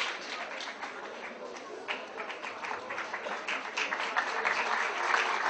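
Audience applauding: a dense patter of many hands clapping, dipping slightly in the first seconds and building again near the end.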